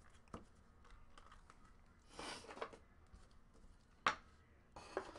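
Faint handling of trading cards: a soft slide of card stock about two seconds in and a few light clicks as cards are handled and set down, the sharpest a single tap about four seconds in.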